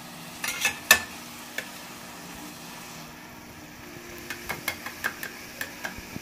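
Steel ladle clinking and scraping against a steel kadai over low sizzling of the onion-and-pea masala, as washed poha is tipped onto it. A sharp knock comes about a second in and a run of light taps near the end.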